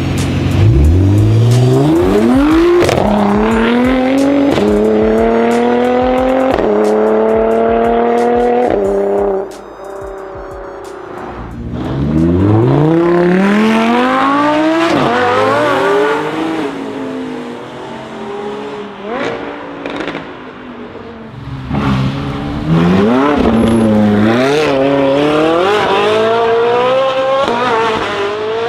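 Performance car engine accelerating hard through the gears, its pitch climbing and dropping at each upshift, with several quick shifts in the first nine seconds. Two more hard pulls follow after short lulls.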